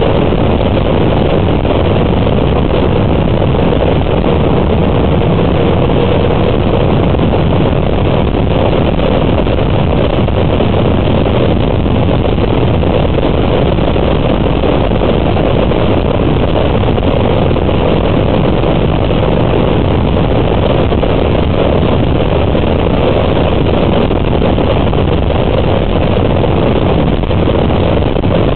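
Steady rush of wind and road noise from a vehicle driving at highway speed, without change throughout.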